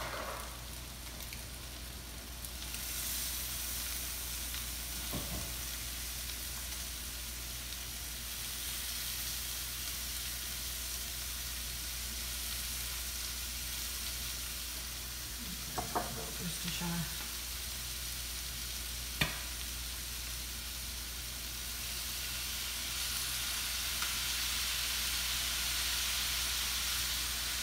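Chicken, peppers and onions sizzling in a hot skillet. The sizzle swells as lemon juice and then Worcestershire sauce hit the pan and steam. A few light knocks come partway through.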